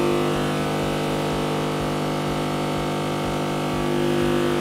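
Loudspeaker playing a steady 50 Hz sine test tone from a C-Audio RA3001 power amplifier driven to its clipping point, heard as one unbroken low tone with many strong overtones. The tone swells slightly near the end.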